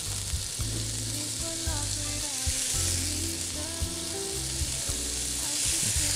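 Raw chicken breasts sizzling steadily in hot olive oil in a frying pan, being seared for colour rather than cooked through.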